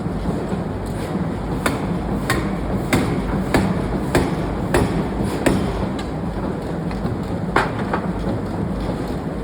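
Pneumatic forging hammer striking steel, a run of sharp blows about every half second to second, then a single blow near the end, over a steady machinery hum.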